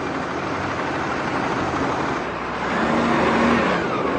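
Motor vehicle engines and traffic noise running steadily, with a low engine hum coming in partway through.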